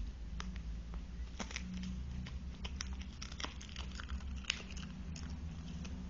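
A dog crunching and chewing a microwaved, puffed-up cheese dog chew: a quick irregular run of crisp cracks and crunches, busiest in the middle seconds.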